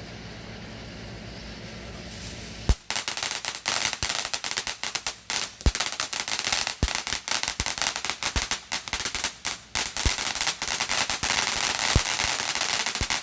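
Consumer firework crackling: a dense, rapid run of sharp cracks and pops with a louder bang about every second, starting suddenly about three seconds in after a low steady hum.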